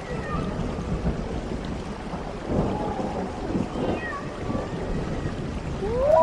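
Horror sound effect: a low rumbling noise with faint wailing glides through it, and near the end a loud rising moan sets in and holds.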